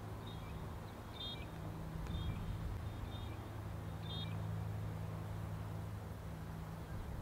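A steady low engine hum of even pitch, with a small bird chirping in short high calls about five times during the first four seconds.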